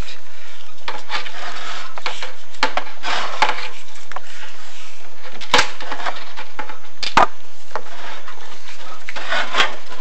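Chimney inspection camera and its cable being lowered down a tiled flue: irregular scraping and rubbing against the flue tiles, with several sharp knocks, the loudest about five and a half and seven seconds in.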